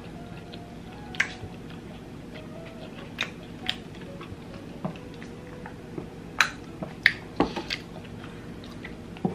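Close-miked chewing: a scatter of soft, wet mouth clicks and smacks, a handful over the few seconds, above a low steady room hum.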